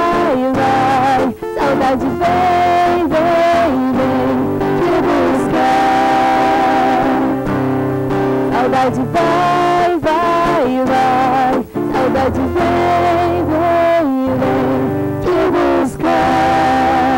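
A woman singing a song live, accompanied by a strummed acoustic guitar, in a voice-and-guitar duo performance.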